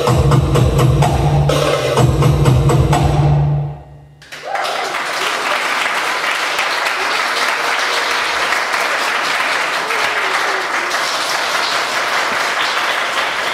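Belly dance music with heavy drumming ends about four seconds in, and the audience applauds for the rest.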